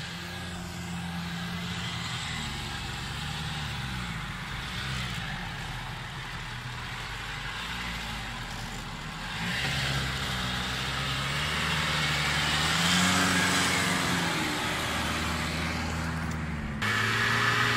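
Off-road 4x4 engine working under load, its revs rising and falling repeatedly, with a hiss of noise above it. It gets louder about halfway through, and the sound changes abruptly near the end.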